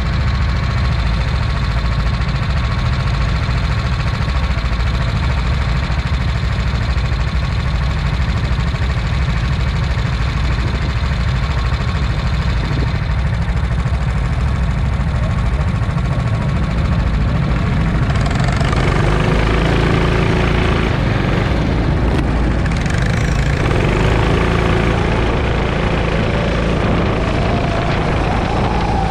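Go-kart engine idling steadily on the starting grid, heard from the driver's seat. About eighteen seconds in the kart pulls away and the sound grows louder and rougher, with the engine's pitch rising near the end as it speeds up.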